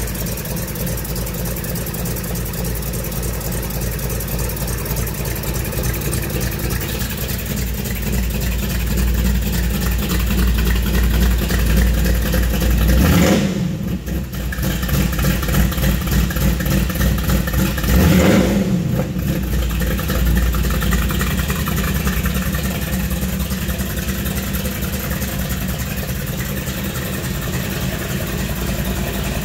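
The 1932 Ford roadster's built GM 400 V8 idling steadily. It is revved briefly twice near the middle, the second rev about five seconds after the first.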